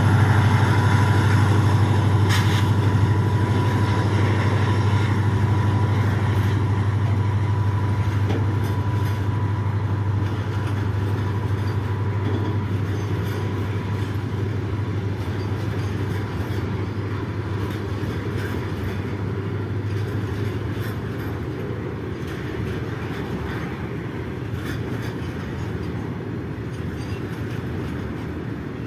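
EMD WDG4 diesel locomotive's two-stroke engine giving its low, steady hum as it pulls away with a train of BTPN tank wagons, slowly fading, with the hum dropping away about two-thirds of the way through. The wagons keep rolling by on the rails.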